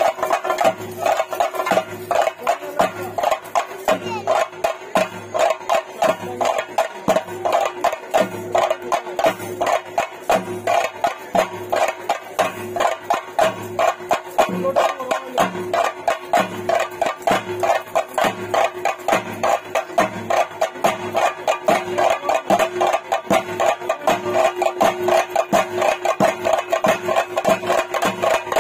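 Theyyam ritual percussion: chenda drums beaten in a fast, even rhythm of about three strokes a second, over a steady held tone.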